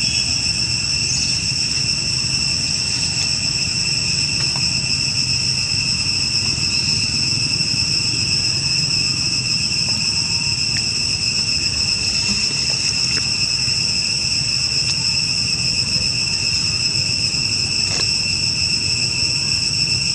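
Insects droning in a steady, unbroken high chorus, with a few faint clicks.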